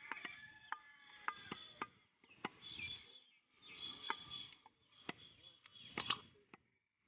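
Heavy butcher's cleaver chopping beef on a wooden log chopping block: a string of sharp knocks at uneven intervals, about a dozen, some in quick pairs.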